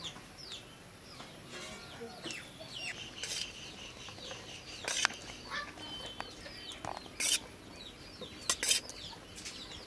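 Steel spoon and bowl knocking and clinking against a steel cooking pot as rice is tipped and scooped into it: a few sharp knocks, the loudest around five, seven and eight and a half seconds in. Birds chirp with short, high calls all the while.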